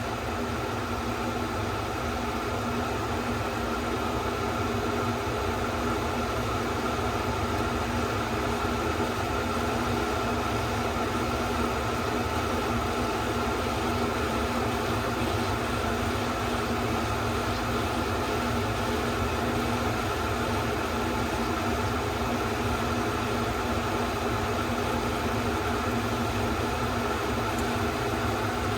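Kitchen vent fan running steadily, a hum with an even rushing hiss, over tofu sizzling in hot oil in an Instant Pot on sauté.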